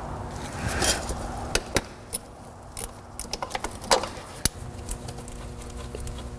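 Scattered light metallic clicks and clinks of a socket and ratchet working a 13 mm nut on the starter's electrical connection, coming irregularly and bunched more closely in the second half.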